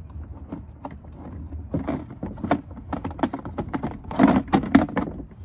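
Hard plastic parts of a chicken feeder clicking and knocking as they are handled. The knocks come thicker and louder near the end, as the teal plastic lid is lifted off the top of the feeder.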